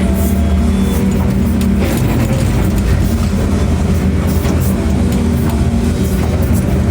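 Excavator's diesel engine running steadily at a constant pitch, with a few faint knocks over it.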